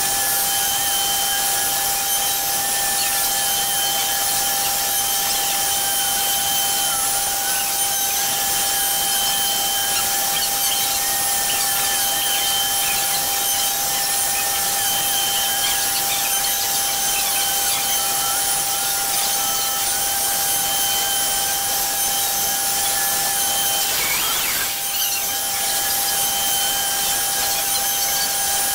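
CNC Shark's router spindle running at a steady high whine while its bit mills a shallow circular pocket in a wood panel, the cutting noise wavering as the bit travels. The sound briefly sweeps and dips about three-quarters of the way through.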